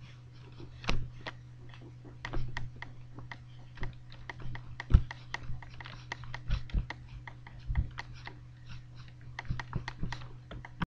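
Irregular sharp clicks and taps, several a second, over a steady low hum.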